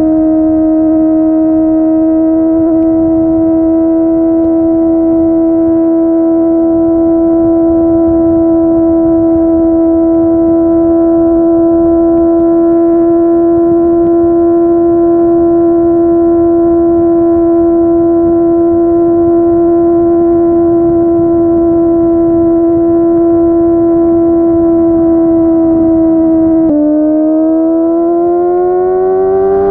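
Kawasaki ZX-25R's inline-four engine through a Yoshimura R55 slip-on exhaust, holding a steady note at constant throttle. Near the end the pitch drops sharply as it shifts up, then climbs again as the bike accelerates.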